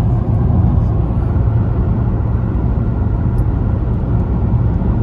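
Steady low rumble of engine and road noise inside a Toyota Avensis diesel car's cabin while it is being driven.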